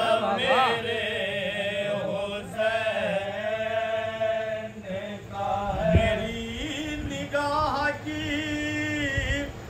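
Men's voices chanting a soz, the Shia mourning elegy, with a lead reciter and his supporting voices drawing out long, wavering notes unaccompanied. A brief low thump comes about six seconds in.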